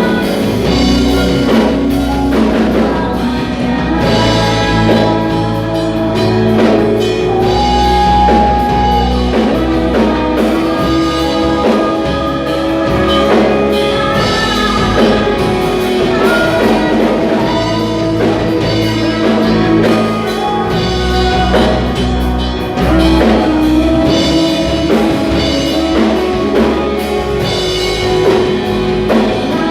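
Praise and worship band music: drum kit, bass and guitar playing, with singing.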